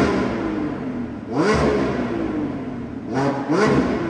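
Lamborghini Revuelto's naturally aspirated 6.5-litre V12 revved while the car stands still. One rev a little over a second in climbs and then falls away slowly, and near the end come two quick blips of the throttle.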